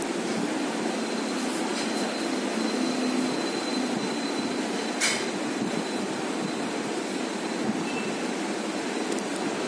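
Steady rushing background noise, with one sharp click about five seconds in.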